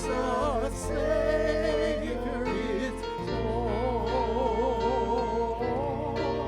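A slow sung hymn: a voice holding long notes with wide vibrato over sustained low accompaniment notes.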